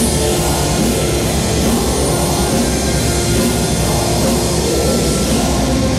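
Heavy rock music with a drum kit and guitars, playing at a steady, loud level.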